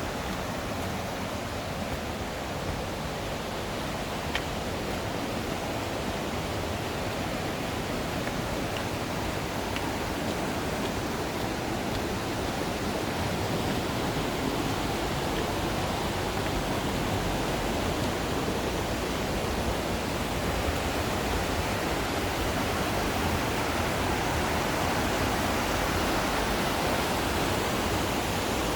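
Rushing water of a mountain stream and waterfall, a steady even rush that grows a little louder toward the end.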